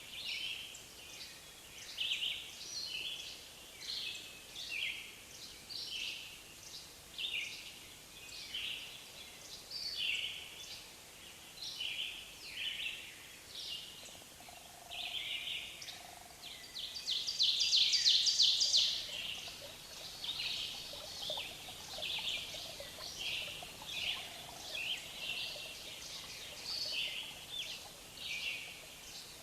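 Forest ambience of songbirds singing short, repeated chirping phrases over a faint steady hiss, with a louder rapid trill partway through.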